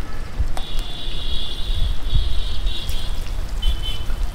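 Battered chicken tikka pieces deep-frying in a wide wok of hot oil, a steady sizzle with scattered small pops, over a strong low rumble.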